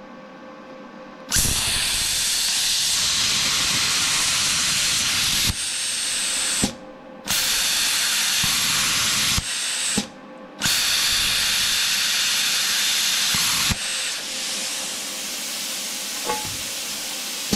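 Titanium 65 plasma cutter cutting through 3/4-inch steel plate: a loud, steady hiss of the arc and air jet, starting abruptly about a second in and stopping and restarting a few times with short breaks, then carrying on somewhat quieter near the end.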